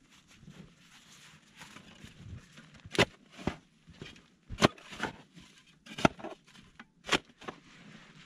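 Six sharp knocks and thumps starting about three seconds in, with rustling and scuffing between them: a person moving about on a snowy car roof and freeing the spare wheel from the roof rack.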